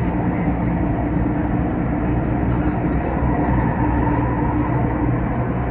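Inside a CRRC Changchun-built Tuen Ma line train carriage in motion: a steady low rumble of wheels on the rails, with a few faint steady hums over it.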